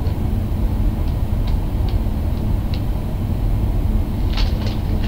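Steady low rumble of background noise, with a few faint clicks scattered through it.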